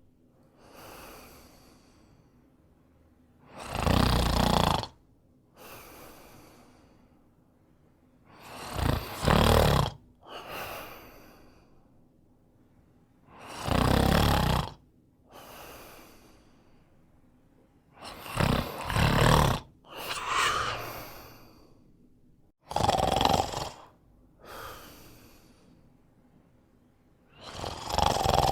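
A man snoring in deep sleep: a loud, rattling snore about every four and a half to five seconds, six in all, each followed by a softer breath.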